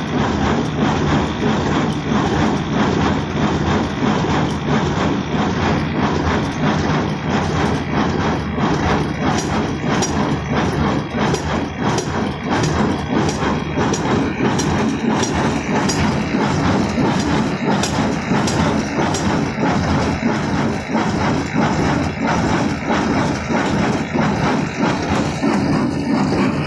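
Kubota square baler running steadily, its feed and baling mechanism clacking at a regular beat over the hum of the driving engine.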